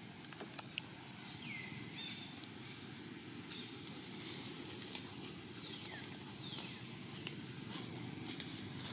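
Outdoor background noise with a steady low rumble, a couple of sharp clicks under a second in, and several short, high animal calls that slide down in pitch, once near the start and twice around six seconds in.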